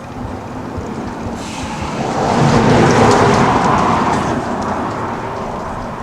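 A motor vehicle passing on the road: its engine and tyre noise swells to a peak about three seconds in, then fades away.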